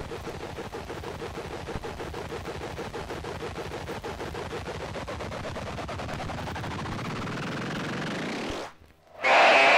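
Electroacoustic stage soundtrack noise: a dense, rapid rattle of clicks, with a tone gliding upward over the later seconds. It cuts off sharply about nine seconds in, and after a brief near-silence a much louder sustained cluster of high tones begins.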